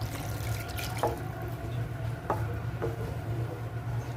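Water poured from a glass into a pan of chicken chilli gravy, with a few light clicks.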